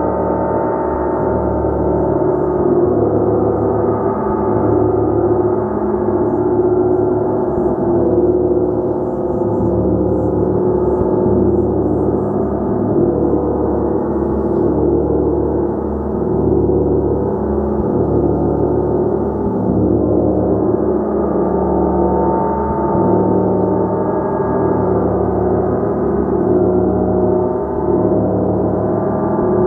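Gong played continuously in a sustained, swelling wash of overlapping tones, with no pauses between strokes.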